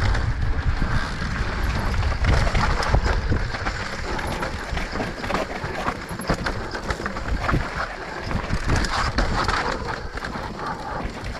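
Mountain bike riding down a dirt and rocky trail: wind rumbling on the microphone, tyres running over dirt and rocks, and frequent clicks and rattles from the bike.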